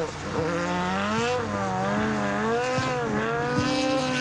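Subaru WRX Airslayer's 2.3-litre flat-four race engine at high revs, its pitch swinging up and down repeatedly as the car is driven hard through corners.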